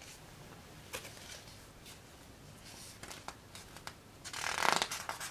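Paper pages of a coloring book being handled and turned: a few faint paper ticks, then a louder rustle near the end as a page is flipped over.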